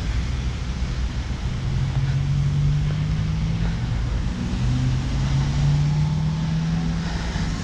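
Street noise: a motor vehicle's engine hum, a steady low drone that comes in about a second and a half in and again about halfway through, over low wind rumble on the microphone.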